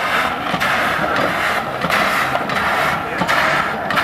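Replica 1769 Cugnot fardier steam carriage under way, its steam engine chuffing in a steady rhythm of about three hissing puffs every two seconds, with a mechanical knocking clatter beneath.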